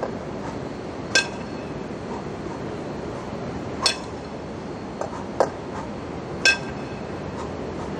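Two 20 kg competition kettlebells knocking together as they are swung and cleaned into the rack, giving four sharp metallic clinks that ring briefly, over a steady background hum.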